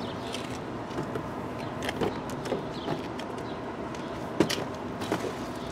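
Steady street noise with a few light clicks and knocks as a car door is opened and held, the sharpest click about four and a half seconds in.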